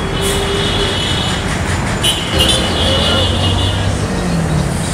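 Busy road traffic with a bus engine running close by, and high steady whining tones twice.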